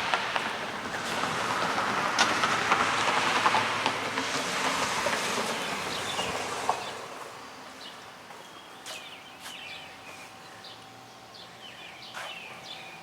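A rushing noise for about the first seven seconds, which then dies away, leaving birds chirping now and then.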